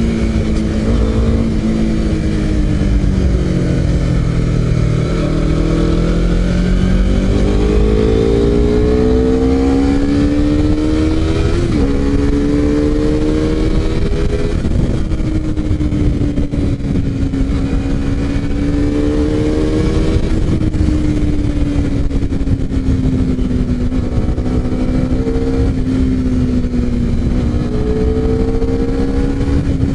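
Honda CBR250RR with an SC-Project aftermarket exhaust, being ridden: the engine note drops about three seconds in, then climbs steadily as the bike pulls away, with a brief break near the middle like a gear change. After that it cruises with gentle rises and falls in pitch, over a low rush of wind.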